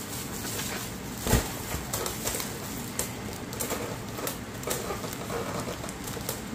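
Plastic bubble wrap and packaging crinkling and crackling as it is handled and pulled apart, with one thump about a second in.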